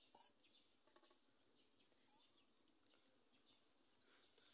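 Near silence: faint outdoor ambience with a steady high insect hiss, and a few soft clicks of a metal ladle against a steel cooking pot.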